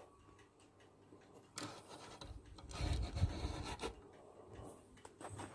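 Die-cast Corgi Ford Thunderbird model car being pushed by hand across a rough wooden board, its small wheels making a quiet rolling, rubbing noise, mostly from about a second and a half in until about four seconds in, with a few small clicks near the end.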